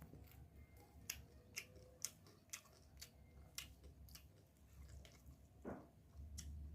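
Faint crunching and chewing of a seasoned rice-field crab: sharp little cracks of crab shell between the teeth, about one every half second, then another near the end.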